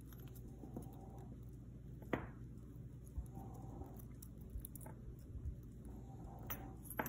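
Faint clicks and soft rustles of hands untangling thin metal necklace chains caught on a metal bangle, with a sharper click about two seconds in and two more near the end.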